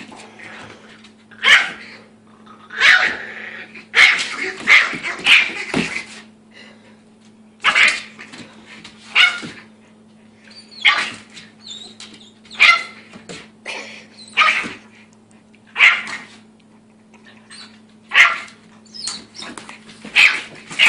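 A dog barks over and over in short, sharp barks, roughly one every second or so and sometimes several in quick succession, with a steady low hum underneath.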